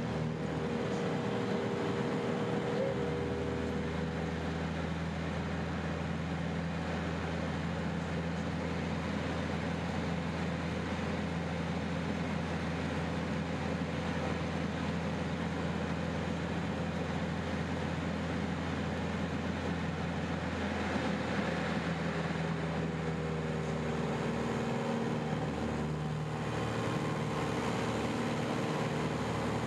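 CAP 10 aerobatic plane's Lycoming four-cylinder engine and propeller running steadily at power, its note shifting for a few seconds around two-thirds of the way in.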